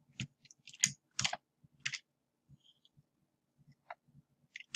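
Light, scattered clicks of a computer keyboard and mouse, several in the first two seconds and a couple more near the end.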